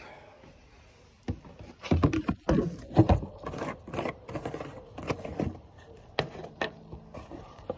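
A series of sharp clicks, knocks and scrapes from handling the brake and clutch fluid reservoir cap and a brake fluid bottle while opening them to top up the fluid. It starts a little over a second in, and the loudest knocks come around two to three seconds in.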